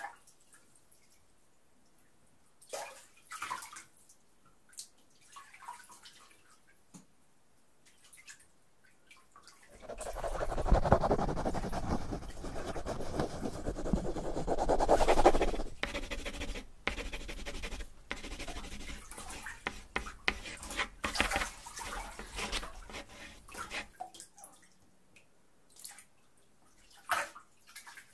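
Bath water in a tub: scattered drips and small splashes, with a louder, denser stretch of water noise for about fourteen seconds in the middle.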